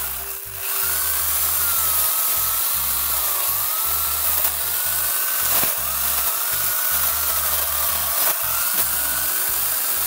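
Small cordless electric chainsaw cutting into a thorny bamboo culm (Bambusa blumeana) near its base, the motor's whine wavering up and down in pitch as the load changes, with a few sharp cracks.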